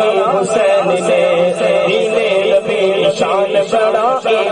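A man singing a naat in Urdu through a microphone, drawing out long, wavering, ornamented vocal lines.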